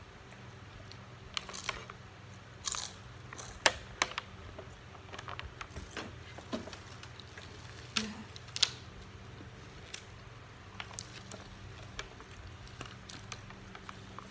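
Eating sounds: a metal fork and a bamboo skewer clicking and scraping in a plastic food container of siomay in sauce, with chewing in between. Scattered short sharp clicks, the loudest about four seconds in and again near nine seconds, over a faint steady low hum.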